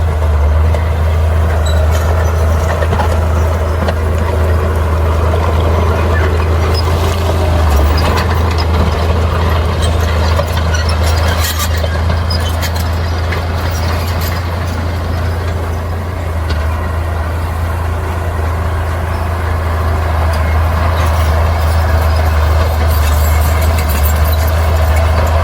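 Heavy diesel earthmoving machinery running steadily with a deep, constant engine drone, with a few short knocks about eleven to twelve seconds in.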